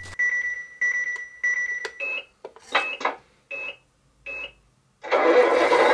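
A series of short electronic beeps, then about five seconds in the Tamiya MFC-01 multi-function unit's simulated truck engine sound starts up through its speaker and keeps running: the engine restart triggered from the transmitter.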